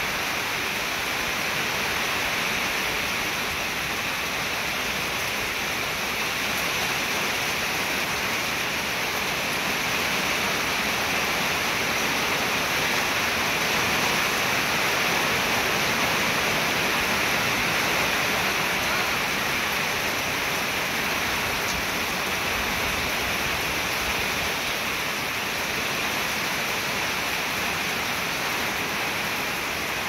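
Steady rain, an even hiss with no letup.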